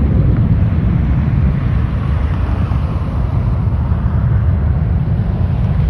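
Steady low rumble of wind buffeting and road noise, heard from a moving car.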